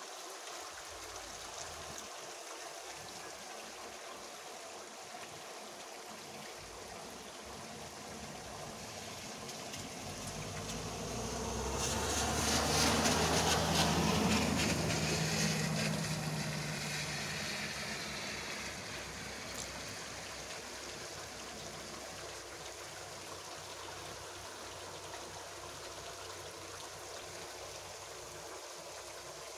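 Heavy rain falling steadily on a street, roofs and running water. About a third of the way in, a vehicle drives past on the wet road, its engine and tyre spray swelling for several seconds and then fading away.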